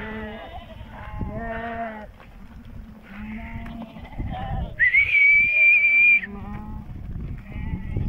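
A large flock of sheep bleating, many calls overlapping at different pitches. About five seconds in, one long, steady high whistle sounds over the flock for about a second and a half.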